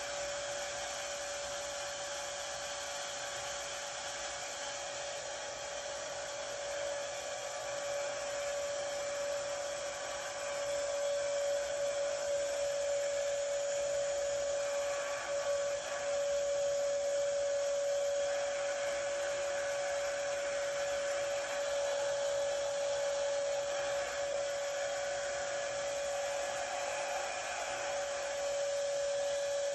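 Shop vacuum running steadily with a constant motor whine, pulling air and dust through a hose from a dust-collection ring on a mixing bucket.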